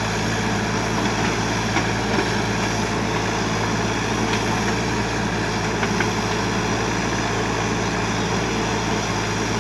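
Kubota U35 mini excavator's diesel engine running steadily at a constant pitch, with a few faint clicks.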